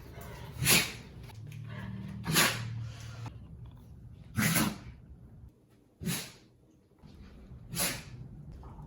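A pet sneezing five times in a row, short sharp sneezes about every one and a half to two seconds.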